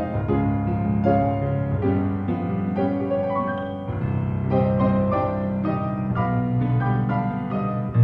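Piano playing a melody over held chords, with a brief dip in loudness about four seconds in.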